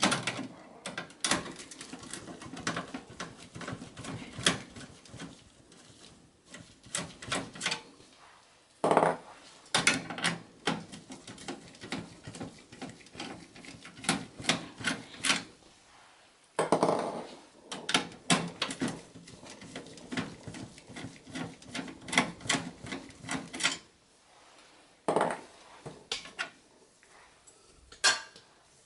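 A screwdriver backing out motherboard screws in a Dell OptiPlex GX280's steel case: rapid clicks and ticks of the bit in the screw heads, with scraping and light knocks against the sheet-metal chassis. It comes in about four busy stretches with short pauses between them.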